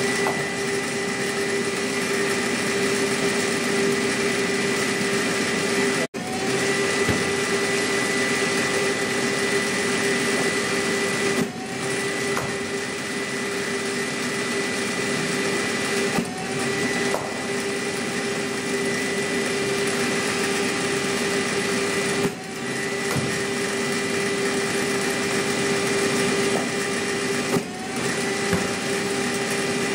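Cricket bowling machine's spinning wheels running with a steady motor whine. About every five to six seconds a ball is fired with a short knock, and the whine dips in pitch for a moment and then climbs back up as the wheels recover speed.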